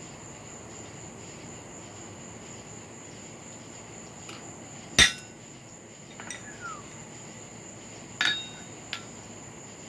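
Hammer blows on a hand punch driving a hole through a hot, flattened carbon-steel cut-nail head on an anvil. There is a single loud strike about halfway through and a second ringing strike about three seconds later, with a few faint taps and knocks between.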